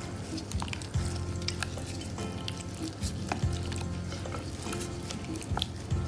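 A gloved hand squishing and turning raw chicken drumsticks in an oily marinade: wet squelching with many small crackling clicks.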